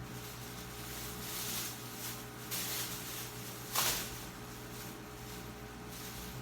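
Plastic bags rustling as pork is handled and bagged, in several short spells with one louder rustle a little before the middle, over a steady low hum.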